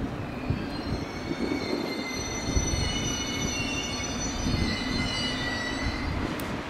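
Train wheels squealing against the rails: several high, steady screeching tones come in about a second in and fade out near the end, over the low rumble of the moving train.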